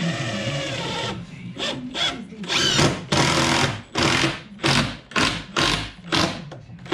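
Cordless drill driving screws into the stair framing: a steady motor whine for about a second, then a run of short trigger-pulled bursts, roughly two a second, as the screws are driven home.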